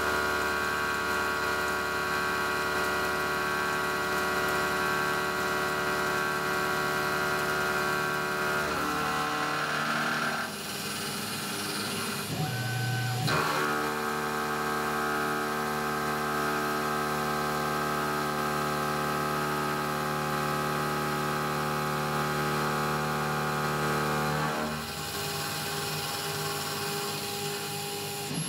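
Tormach PCNC 1100 mill face-milling 1018 low carbon steel dry, with a 38 mm face mill carrying APMT carbide inserts at 1020 RPM. The cut makes a steady whine of several held tones. It thins out for a few seconds about ten seconds in, then picks up again and changes near the end.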